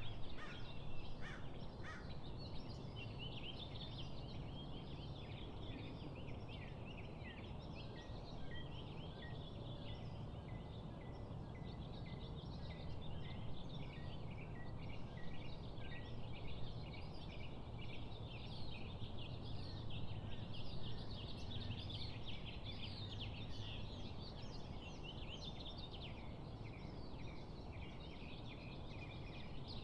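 A dawn chorus of many birds chirping and trilling together without a break, over a steady low background rumble.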